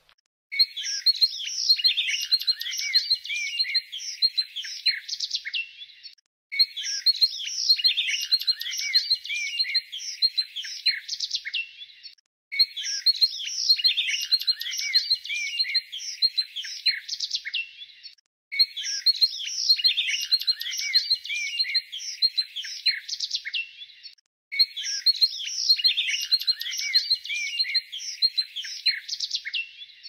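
Small songbirds chirping and twittering in a dense, busy chorus. The same stretch of about six seconds repeats five times, with a brief break between each.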